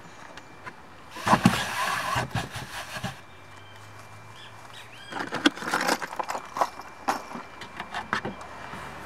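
Fishing gear being handled while it is taken out of a car's trunk: rustling and sharp knocks from a fabric rod bag and a plastic tackle box, in two bouts about a second in and about five seconds in.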